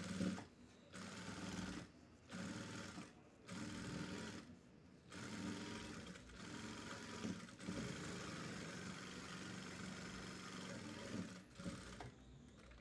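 Electric sewing machine stitching a knit trouser-leg hem with elastic inside: a few short runs with pauses, then a longer steady run of about six seconds that stops shortly before the end.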